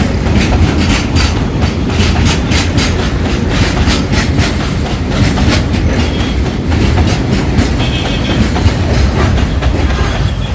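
Freight train of tank wagons rolling along the track: wheels clacking in quick runs over rail joints above a steady low rumble.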